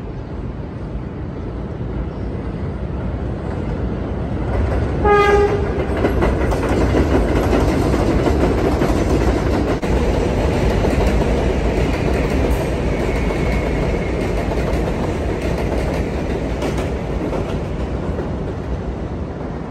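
Subway train running over an elevated steel trestle: wheels rumbling and clattering on the rails, swelling up, holding loud through the middle and easing off near the end. A short horn blast sounds about five seconds in.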